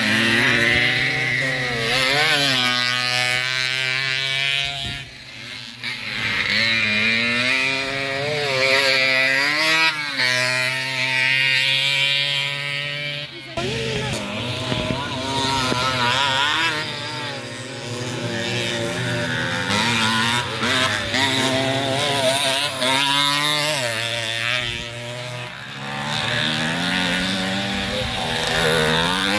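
50cc two-stroke youth motocross bikes racing on a dirt track, engines revving up and down repeatedly as the riders accelerate and shift, over a steadier low engine drone.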